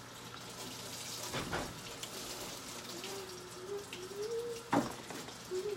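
Kitchen tap running into the sink as it fills with fresh soapy water for washing dishes, a steady hiss of water, with two short knocks, one about a second and a half in and one near the end.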